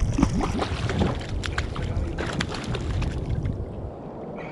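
A hooked fish splashing at the water's surface beside a kayak as it is pulled in: a run of short, sharp splashes over the first three seconds or so, then calmer. Wind rumbles on the microphone throughout.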